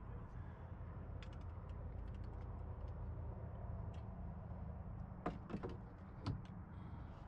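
Hard knocks and clicks of gear against a small boat's hull, scattered at first, then a cluster of louder ones about five to six seconds in, over a steady low hum.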